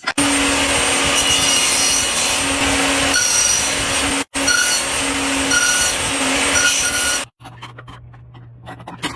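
Wood being cut: a loud, steady rasping noise with a faint hum running through it, broken by a momentary gap about four seconds in and stopping abruptly about seven seconds in. Quieter clicks and knocks follow.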